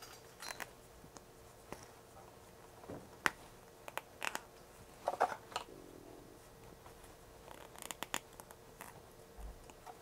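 Faint, scattered clicks and scratches of small parts being handled on a workbench, the power divider being picked up, over a faint steady hum.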